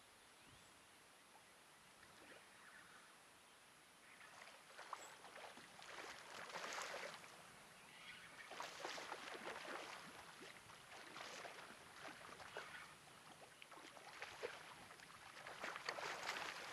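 A hooked striped bass splashing at the surface of shallow water while being played on a rod, in repeated short bursts of splashing that begin a few seconds in, with the biggest splashes near the end.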